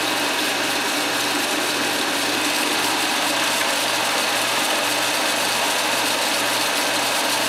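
Eiki NT 16mm film projector running in rewind, its motor and mechanism giving a steady mechanical whir as the film winds back onto the front reel.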